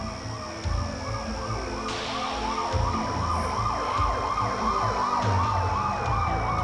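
Emergency-vehicle sirens: one yelping fast, about three rises and falls a second, over a second siren's slow wail that climbs about two seconds in, holds, then slowly sinks.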